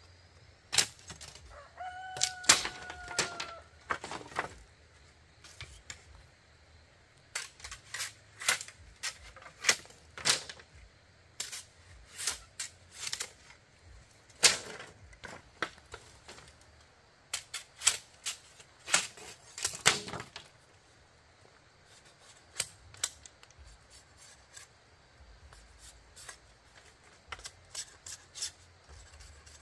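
A rooster crows once, a short, slightly falling call about two seconds in, over irregular sharp knocks and chops on bamboo that come in clusters and thin out in the second half.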